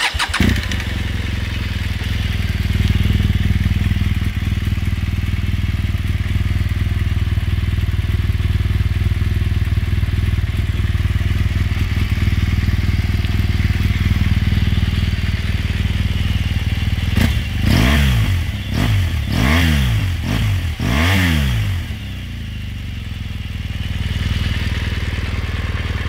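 BMW R1200GS Adventure's boxer twin on its stock exhaust, starting and settling into a steady idle. About two-thirds of the way through it is revved three times in quick succession, then it drops back to idle.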